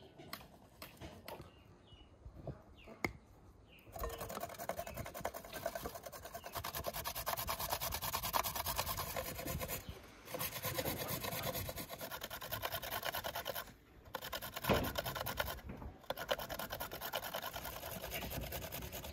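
Carrot grated on a metal box grater into a glass bowl: fast, continuous rasping strokes that start abruptly about four seconds in, with a few short pauses.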